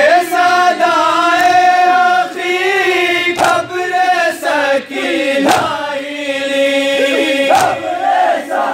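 A crowd of men chanting an Urdu noha lament together in long held notes, with sharp chest slaps of matam landing every second or two.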